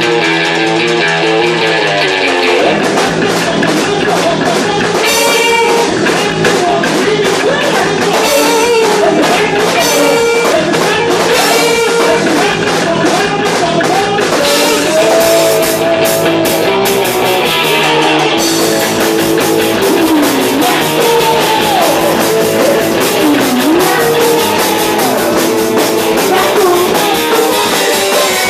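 Live rock band playing electric bass, electric guitar and drum kit, with a man singing into a microphone from a couple of seconds in.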